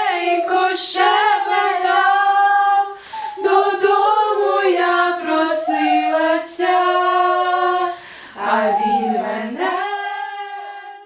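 Several girls singing a song together without accompaniment, in long held phrases with short pauses between them. The singing fades out near the end.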